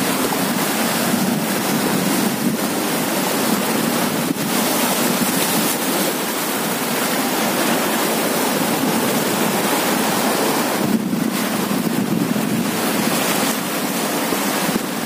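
Sea surf washing steadily against a rocky shore, with wind blowing on the microphone.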